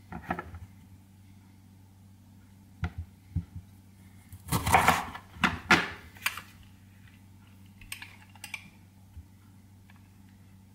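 A knife cutting a lime in half on a plastic cutting board: a few short knocks, then a louder cluster of chops and scrapes in the middle. A few light clicks follow near the end, as a metal hand-held citrus squeezer is handled.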